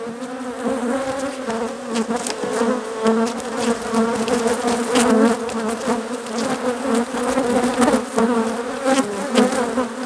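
A large number of honeybees buzzing around an opened hive: a dense, steady hum whose pitch wavers slightly, with a few light clicks scattered through.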